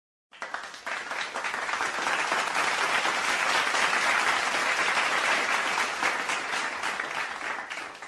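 Applause sound effect: a crowd clapping. It swells up over the first couple of seconds, holds, and dies away near the end.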